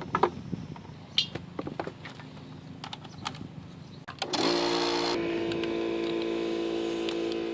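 Scattered clicks and knocks of metal parts being handled, then about four seconds in a small electric motor starts and runs at a steady hum.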